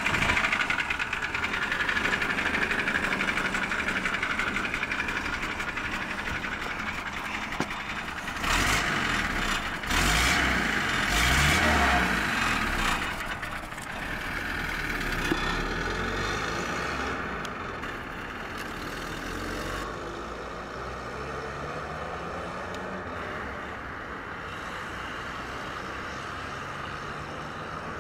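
1973 Land Rover Series III's carbureted petrol engine idling, then revving as the vehicle pulls away and drives off. The engine note rises repeatedly through the gears and grows fainter as it moves away.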